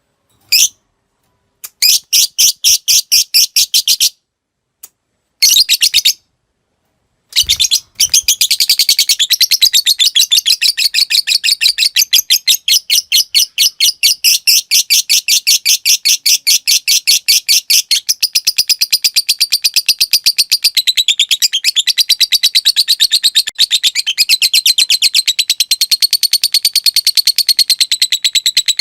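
Lovebird calling: a few short bursts of rapid ticking chirps in the first six seconds, then from about eight seconds in a long, unbroken chatter of rapid high chirps, the long 'ngekek' trill.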